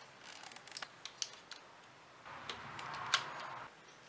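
Wire strippers clicking and cutting on ignition coil connector wires: a few small light clicks, then a scraping rustle about two seconds in, with one sharp click in it, as insulation is pulled off the wire.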